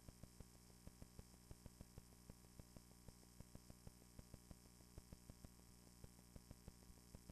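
Near silence: a faint electrical hum and static, with small irregular clicks several times a second.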